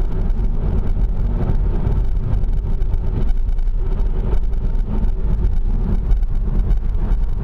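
Steady road and wind noise of a car driving at speed, heard from inside the car.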